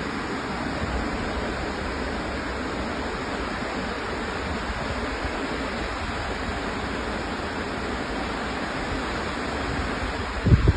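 Waterfall rushing steadily, an even roar of falling water. A brief low thump, the loudest moment, comes near the end.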